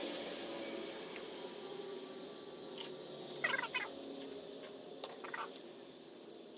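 A cat meowing twice, a longer call about halfway through and a shorter one a couple of seconds later, over a low steady hiss.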